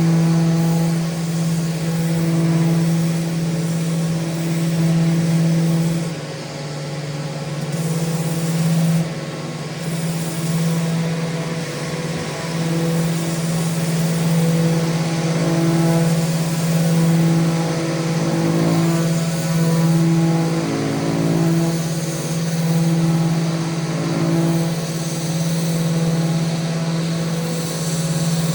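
Electric sander running steadily against a handrail, a constant motor hum whose pitch sags briefly a few times, most clearly about six seconds in and again around twenty seconds in.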